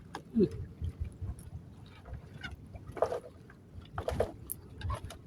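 Choppy water slapping against a small boat, with a low rumble of wind and water and a few irregular hollow knocks, the strongest about three and four seconds in.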